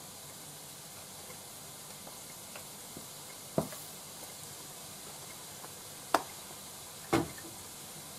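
Cabbage, tuna and shimeji stir-fry sizzling steadily in a frying pan, with three sharp knocks in the second half.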